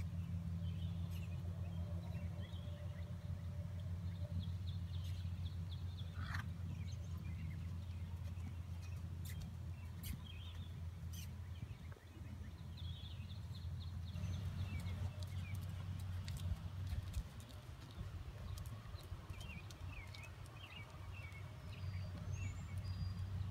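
Small birds chirping now and then over a steady low hum, with scattered faint clicks that may be a horse's hooves on sand.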